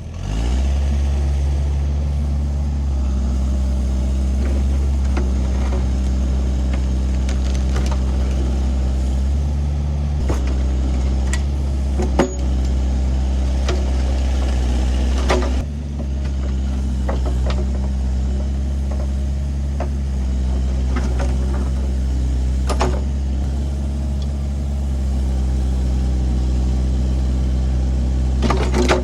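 Excavator's diesel engine running steadily, its pitch shifting a little now and then, with occasional sharp knocks and clunks.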